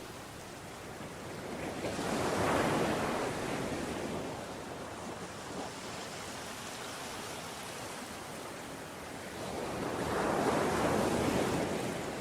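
Ocean waves breaking on a shore, two of them: one about two seconds in and another about ten seconds in, each swelling and fading over a few seconds, with steady surf hiss between.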